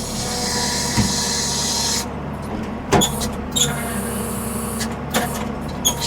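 Ford 550 backhoe's diesel engine running steadily, with a hiss for about the first two seconds and several sharp knocks spread through the rest.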